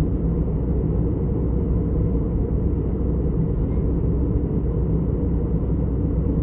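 Jet airliner cabin noise in cruise flight, heard inside the cabin: a steady, deep rumble with a fainter hiss above it.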